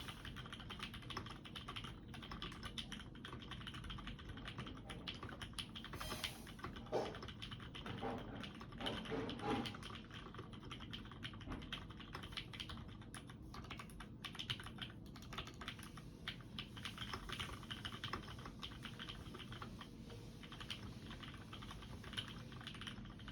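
Custom UTD360C mechanical keyboard being typed on continuously, with Black Sakura 60 g switches, EverGlide Gold stabilisers and GMK HyperFuse keycaps: a steady stream of key clacks, with a few louder strokes around seven to ten seconds in.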